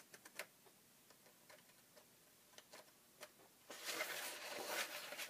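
Small scattered clicks and taps, then about a second and a half of scratchy cutting noise near the end as a dried tissue repair on a book page is trimmed.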